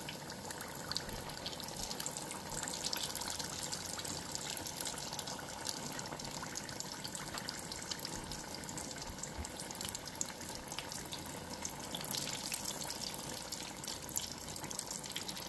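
Chicken-filled pastelitos deep-frying in hot cooking oil: a steady sizzle with fine, constant crackling.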